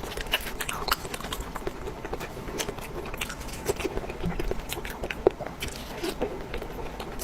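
A person eating close to the microphone: chewing and biting with many small irregular clicks, crackles and mouth smacks.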